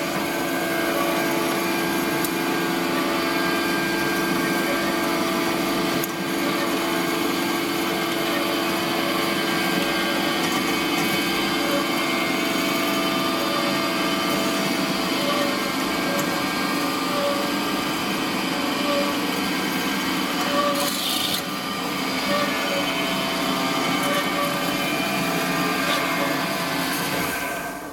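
MICHELIN MBN 10 air compressor running steadily, its motor and pump giving a constant hum over mechanical noise; it cuts off at the very end.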